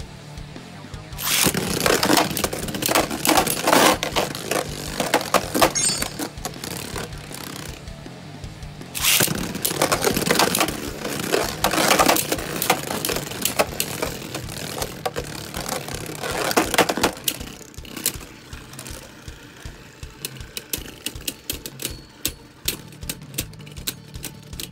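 Two Beyblade spinning tops, Helios Volcano and Dangerous Belial, clashing in a plastic stadium: long runs of rapid clattering hits, then sparser ticks near the end as they spin on. Background music plays under it.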